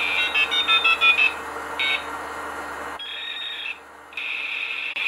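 A quick run of short electronic beeps at several different pitches, then one more short beep about two seconds in, over a steady high-pitched hiss that drops out briefly near the four-second mark.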